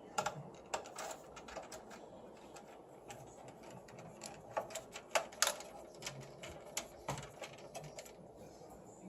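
Irregular sharp clicks and light taps of metal parts and tools being handled inside a desktop computer case, with no steady rhythm.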